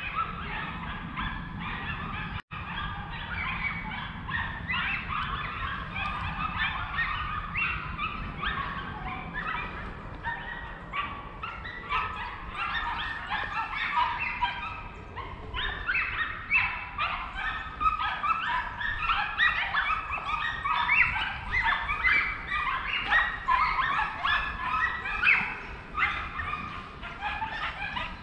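A pack of hunting hounds baying on a fox's trail: many dogs barking and yelping at once in a continuous overlapping chorus, growing louder in the second half.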